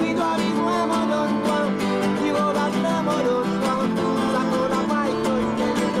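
Credits music led by strummed acoustic guitar, with a moving melody line over sustained chords.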